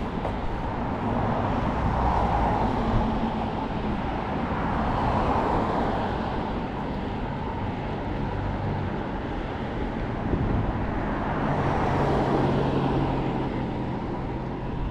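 Road traffic on a city street: cars passing one after another, swelling and fading, over a low engine hum.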